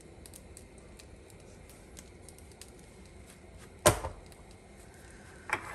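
Kitchen containers being handled: faint scattered ticks, then one sharp knock about four seconds in and a lighter knock near the end.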